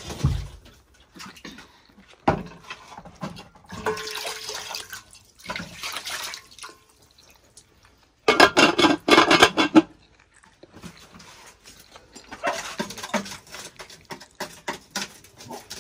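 Water poured into a metal cooking pot. Then the loudest part: a pot lid clattering with a quick run of sharp metal knocks for a second or two as it is fitted on, followed by softer knocks of pots being handled.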